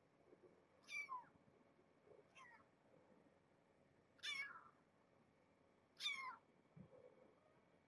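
A young kitten mewing: four short, high mews, each falling in pitch, spaced about one and a half to two seconds apart, the third and fourth the loudest.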